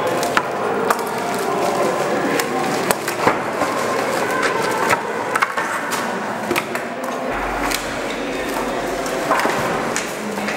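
Wooden planks knocking and clattering against each other as they are lifted and propped up, a string of irregular sharp knocks.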